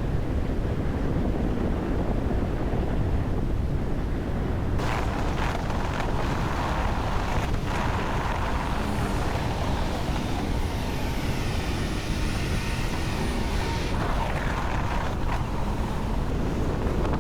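Steady noise, heaviest in the low rumble, like wind buffeting an action camera's microphone while moving. From about five seconds in until about fourteen seconds a brighter hiss with a faint steady whine joins it, then drops away.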